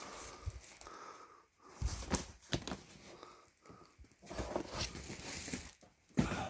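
Rummaging through clutter: rustling and crinkling with light knocks and clicks as bags and objects are handled and moved about, and a louder knock near the end.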